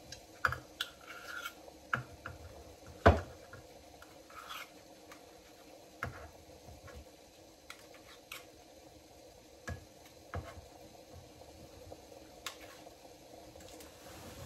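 Small stainless steel measuring cups and containers clinking, tapping and scraping on a kitchen counter as oil is measured out: a scatter of light clicks and knocks, the sharpest about three seconds in, over a faint steady hum.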